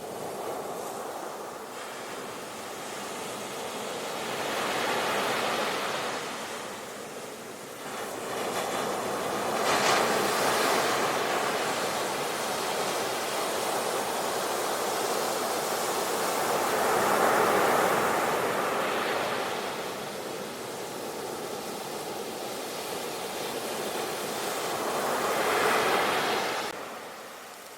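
Ocean surf: foamy waves breaking and washing up the shore, the rushing noise swelling and fading in several surges, the loudest about ten, seventeen and twenty-six seconds in.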